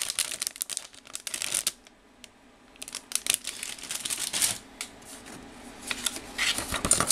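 Rustling and light clicking of plastic model-kit parts runners being handled and lifted out of a cardboard box. There is a short lull about two seconds in, then more rustling and a few clicks.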